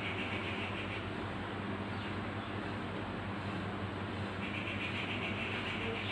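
Steady low hum with a hiss over it; the hiss fades about a second in and comes back near the end. No sneeze or other distinct event.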